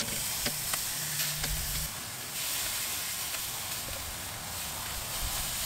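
Chicken leg quarters sizzling on the hot grate of a charcoal drum smoker, a steady hiss as sauce and fat drip onto the coals, with a few light clicks of tongs and the basting pot.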